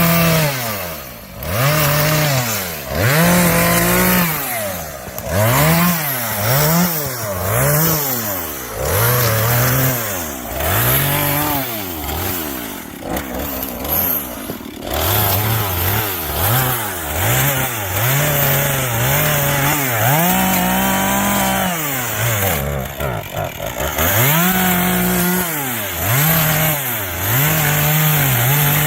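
Two-stroke chainsaw cutting wood, its engine revving up and dropping back again and again, about every one to two seconds, as in a run of quick cuts. A longer cut is held at high revs a little past the middle.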